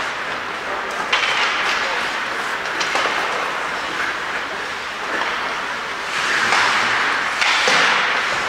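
Ice hockey rink sound: a steady hiss of skate blades on the ice, with a few sharp clicks of sticks and puck, swelling louder twice near the end.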